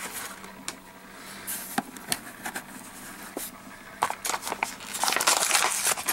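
Carded toy-car packages handled: plastic blister packs crinkling with scattered sharp clicks and taps, the crinkling getting busier in the last two seconds.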